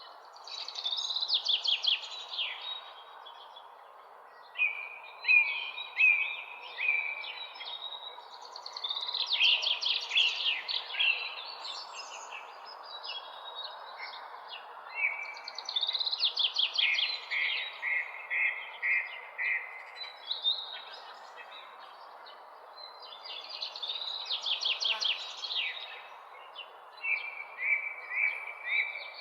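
Songbirds singing in the early morning: phrases of rapid, falling notes and short trills repeat every few seconds over a steady background hiss.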